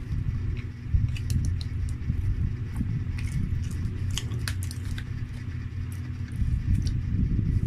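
Close-miked chewing and wet mouth clicks of someone eating a cheeseburger, scattered short clicks throughout, over a low steady hum.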